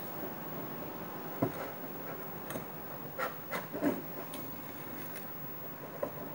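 Hands mixing and kneading a crumbly flour dough in a glass bowl: a steady soft rubbing of fingers through the dough, with several short clicks of fingers or nails against the glass.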